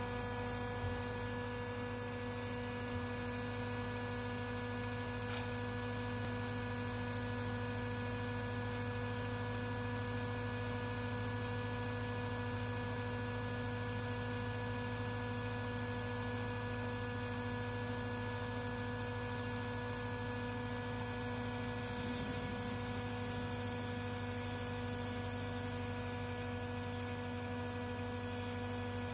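Steady hum with several even, unchanging tones from a running Arduino-driven mechanical television, its motor spinning the Nipkow disc at constant speed along with its electronics.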